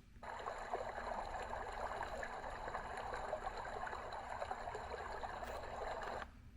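Dreamegg D1 sound machine playing its running-water track, a steady trickling stream sound through its small speaker. It starts a moment in and cuts off abruptly near the end as the next sound is selected.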